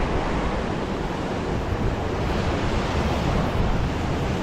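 Ocean swell surging and washing over a rock platform, a steady rush of surf, with wind buffeting the microphone.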